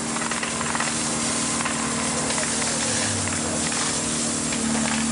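Steady engine hum with a constant hiss, as of a fire engine's pump running while hose jets spray water onto a building.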